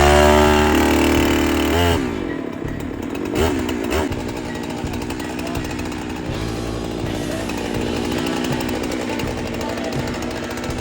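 Husqvarna two-stroke chainsaw starting: it catches suddenly and runs fast for about two seconds, then drops in pitch. After two short revs it settles into a steady idle.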